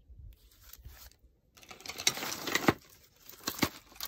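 Handling noise from strands of beads and their paper tags: a stretch of rustling with small clicks starting about a second and a half in, and two sharp clacks near the end.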